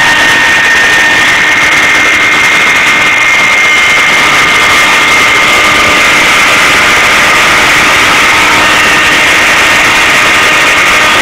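CNC machine running: a steady, loud mechanical noise with high whining tones that drift slightly in pitch.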